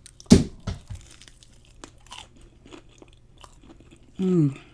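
A crunchy bite into a battered fried shrimp about a third of a second in, followed by soft crackling chewing. A short falling hum of the voice near the end.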